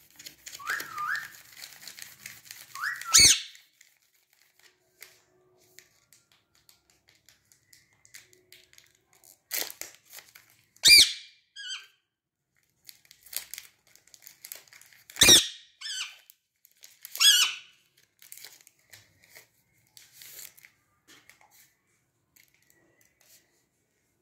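Rose-ringed parakeets giving short, sharp, high-pitched screeches, four loud ones spaced a few seconds apart, with a couple of short rising whistles at the start and soft chirps and rustles in between.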